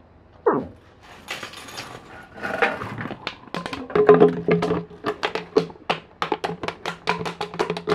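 Siberian husky mouthing and chewing a plastic drink bottle, the plastic crackling and crinkling in a quick run of sharp clicks that grows busier from about three seconds in.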